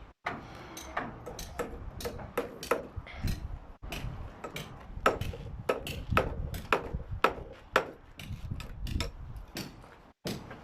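Hammers striking nails into timber formwork: irregular sharp knocks, several to the second, some much louder than the rest.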